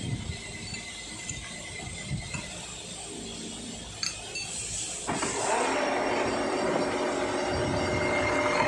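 Metal clinks and knocks of a gear blank being fastened onto a gear-cutting machine's arbor. About five seconds in, the machine starts and runs with a steady, louder mechanical rattle and whine.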